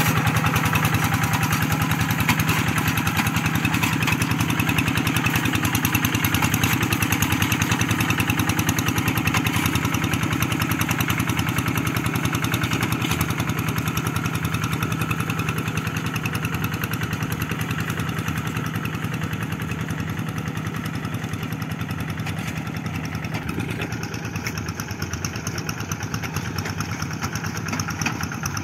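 Single-cylinder diesel engine of a Kubota two-wheel hand tractor running steadily under load while plowing a flooded rice paddy, with a rapid, even firing beat. It gradually grows fainter as the tractor moves away.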